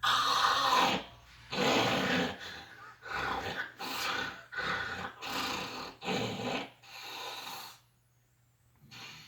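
A man snoring loudly: a run of about eight harsh, rasping snores roughly a second apart, the first ones loudest and the last weaker, stopping about a second before the end.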